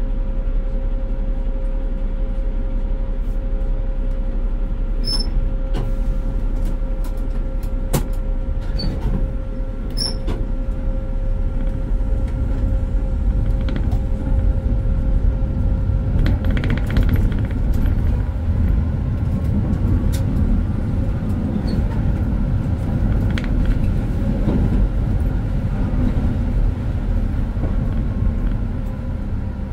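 Konstal 105Na tram running along the track, heard from the driver's cab: a steady low rumble of wheels and running gear with a constant whine. A few sharp clicks and knocks come from the rails, and a short louder noisy passage comes a little past the middle.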